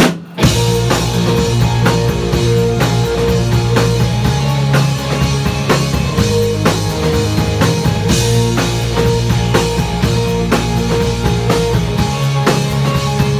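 Live rock band playing: drum kit, electric guitars and bass guitar. The full band comes back in after a moment's break right at the start.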